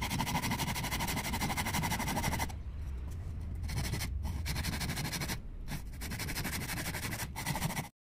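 Hand saw cutting into a wooden block, rasping back-and-forth strokes with a few brief pauses, cutting off abruptly near the end.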